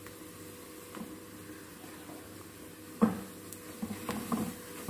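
Shallots, ginger and garlic frying in oil with freshly added chilli and turmeric powder, a faint steady sizzle. About three seconds in, a wooden spatula starts stirring the masala, scraping and knocking irregularly against the metal pan.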